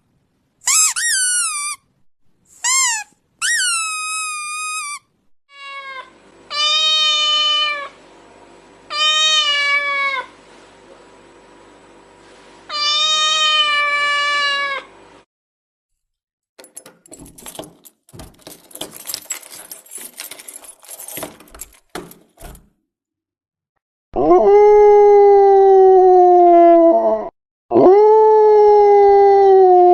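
A sequence of animal sound effects: short high squeaky cries, then a few cat meows, a stretch of scattered clicking and crackling, and two long, loud howls falling in pitch near the end.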